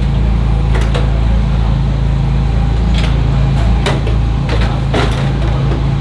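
Several sharp knocks and clatters as mechanics handle the BMW M4 GT3's bodywork and lift off its bonnet, over a steady low mechanical hum.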